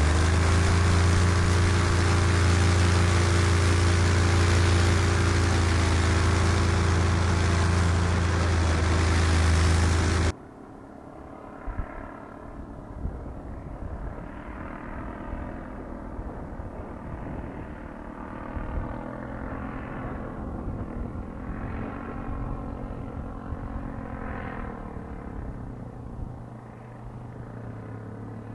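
A homemade paramotor's single-cylinder four-stroke engine, fitted with a chambered aluminum muffler, running loud and steady at high power, heard close up from on board. About ten seconds in the sound drops abruptly to the same engine heard faint and distant overhead, its drone rising and falling gently in pitch.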